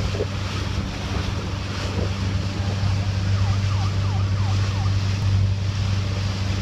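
Motorboat engine running with a steady low hum, under wind and water noise. About halfway through, five quick falling whoops from a siren.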